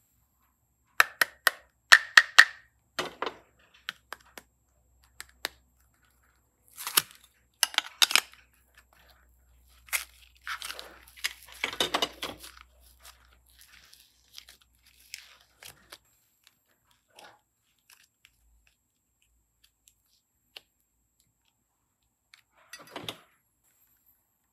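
Crunchy slime being squeezed and worked by hand, giving irregular crackling, crunching and tearing clicks in uneven clusters, busiest in the first half and again a little after the middle.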